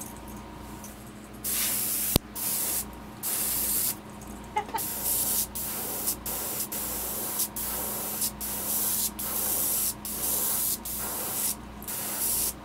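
Airbrush hissing in about a dozen short bursts as the trigger is pressed and released, with a steady low hum underneath and a sharp click about two seconds in.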